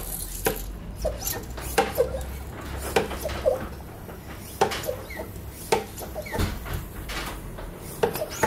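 DSG gearbox oil being pumped from a bottle up a hose into the gearbox fill port: irregular short gurgles and squelches from the fill pump and hose, over a low steady hum that fades near the end.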